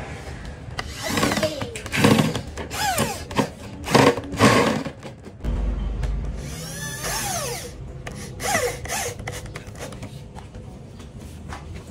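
Corded electric drill with a keyed chuck boring into a plywood shelf board, run in several short bursts. Its motor whine falls away each time the trigger is released.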